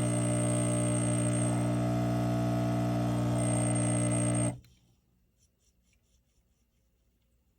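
De'Longhi Dedica Arte espresso machine's vibratory pump buzzing steadily while pulling a shot, then stopping suddenly about four and a half seconds in, leaving near silence.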